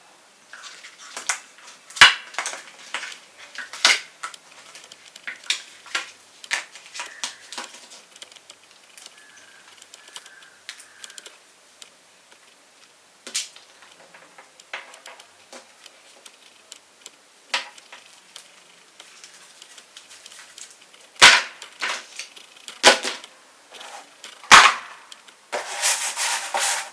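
Unboxing handling sounds: scattered clicks, taps and knocks of a box and its contents being handled, with a few sharper knocks about two seconds in and in the last few seconds, and a short rustle near the end.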